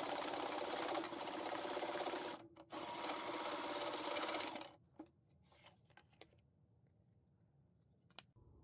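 Old sewing machine converted into a scroll saw, driven by an electric jigsaw motor, running with a fast, steady rattle as its jigsaw blade cuts a thin panel. It dips briefly a couple of seconds in, then stops about four and a half seconds in, leaving a few light clicks.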